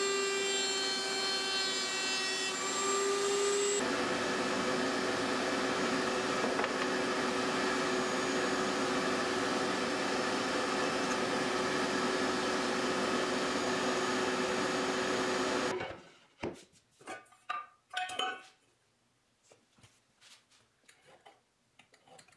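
Router table running with a dovetail bit as an oak workpiece is fed along the fence, trimming the dovetail tail to fit: a steady whine whose pitch dips slightly as the bit cuts, changing in tone about four seconds in. About 16 seconds in it cuts off abruptly, followed by a few light knocks and clinks of a stainless steel dog bowl being set onto a wooden board.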